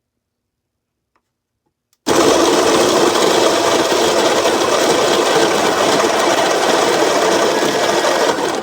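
Baratza Encore conical burr coffee grinder switched on about two seconds in, its motor and burrs running loud and steady, then cut off suddenly near the end.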